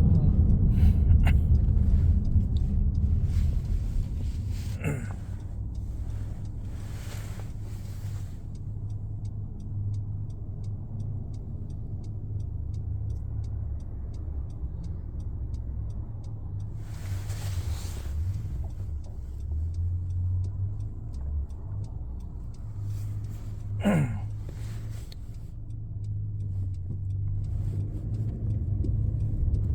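Steady low hum and road noise of a 2015 Honda CR-V in motion: the loud humming drone that seems to come from the rear of the car. Hiss swells up twice, and two brief falling whistle-like sounds cut through, about five seconds in and near the end.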